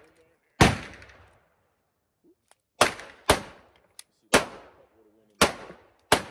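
Handgun shots on an outdoor range: six sharp reports at uneven intervals, each ringing off briefly. The first comes just after the start, then a pair in quick succession about three seconds in, then three more roughly a second apart.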